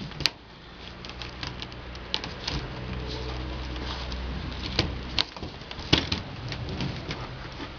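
Two cats play-fighting on a sheet of cardboard, their paws and claws scraping and tapping on it in quick, sharp scratches that are strongest around five to six seconds in. Under them a low steady hum cuts off about five seconds in.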